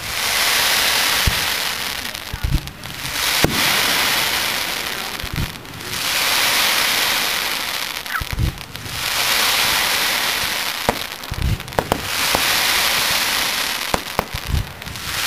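Aerial fireworks shells bursting in a steady run: sharp low booms about every one to three seconds, with swells of crackling hiss about two seconds long in between.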